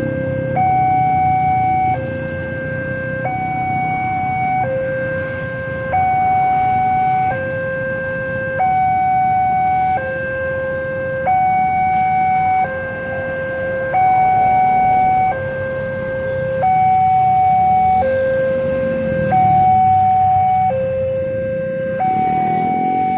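Railway level-crossing alarm sounding from the signal post's loudspeaker, a two-tone electronic warning that alternates steadily between a high and a low tone about every second and a half, which signals that a train is approaching and the barrier is down. Motorbikes and cars run past underneath it.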